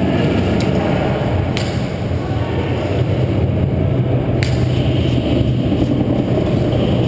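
Steady low hum and rumble throughout, with a few sharp clicks: a faint one under a second in, and louder ones about a second and a half and four and a half seconds in.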